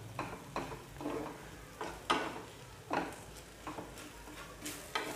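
Wooden spatula stirring and scraping a thick peanut-powder masala around a nonstick kadhai in short, irregular strokes, over a faint sizzle of hot oil.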